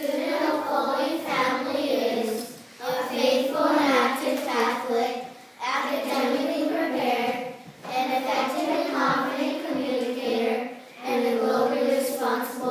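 Children singing together in phrases a few seconds long, with short pauses between them.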